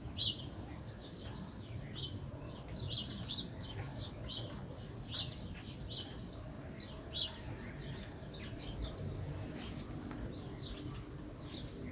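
Birds chirping in short, high calls, repeated throughout, over a steady low rumble of wind.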